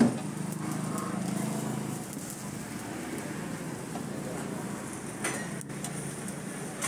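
Street-food stall ambience: a steady low hum under faint background voices, with a sharp clink at the start and another about five seconds in, typical of a metal spatula on the griddle.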